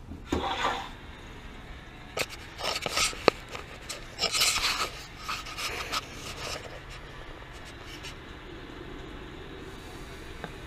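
Irregular bursts of rubbing and scraping from hands handling the water heater's fittings and a plastic bottle at the relief-valve outlet, with one sharp click about three seconds in. After that only a faint steady hum remains.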